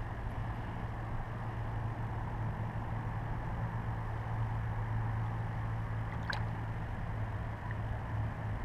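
Steady low hum under a faint hiss, with one small sharp click about six seconds in.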